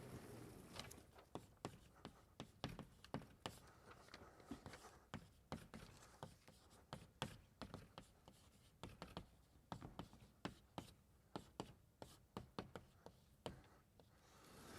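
Faint, quick, irregular taps and scratches of someone writing on a board, a few strokes a second.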